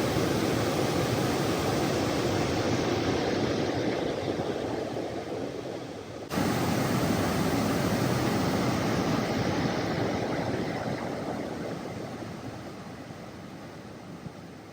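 Rushing water of the Manavgat waterfall, a loud steady noise of falling water. It dips and jumps abruptly back up about six seconds in, then fades steadily over the last few seconds.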